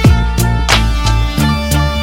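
Background music with a steady beat: punchy drum hits over bass and sustained instrumental notes.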